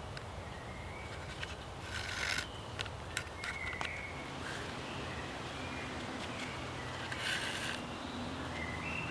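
Split spruce root cord being pulled through the punched holes of a birch bark container while stitching it: two short scratchy rasps of the cord drawing through the bark, about two seconds in and again just past seven seconds, with a few small ticks between them. Faint short bird chirps sound now and then over a steady low background rumble.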